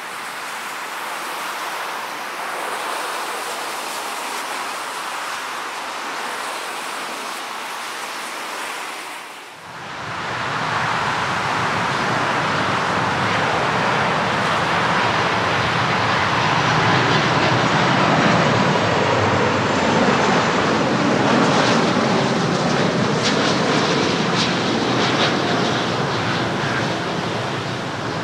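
A steady rushing noise, then about ten seconds in a louder, deeper jet noise from an Airbus A330 MRTT tanker passing low on final approach with its gear down. A few short crackles come through near the end.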